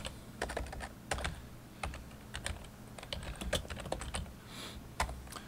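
Typing on a computer keyboard: a string of irregular key clicks with short pauses between them.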